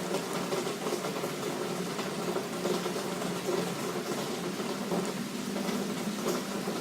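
Heavy rain pouring down steadily, an even crackling patter, with a steady low hum beneath it.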